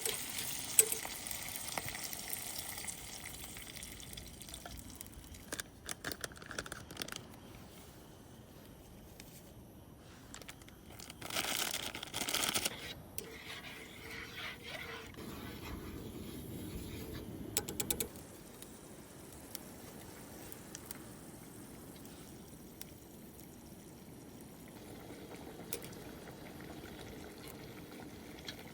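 Camp cooking: a pan sizzling faintly at first, then liquid poured in with a loud rush about eleven seconds in, followed by a quieter steady simmer.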